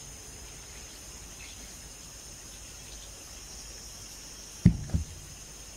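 A steady high chirring of insects in the background, with two dull knocks close together near the end.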